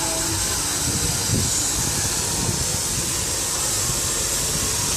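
Steam locomotive standing at the platform, hissing steam steadily.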